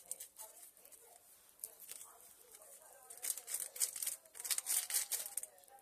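Paper sachet of vanilla sugar being torn open and shaken out over the bowl: a few sharp crackles, then a burst of crinkling and rustling paper in the second half.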